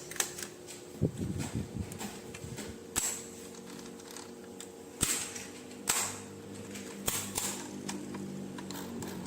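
Hard plastic toy parts and packaging being handled: a series of sharp clicks and taps at irregular intervals, over a faint steady hum.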